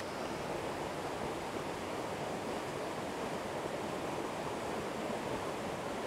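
Shallow mountain stream flowing, a steady rush of water.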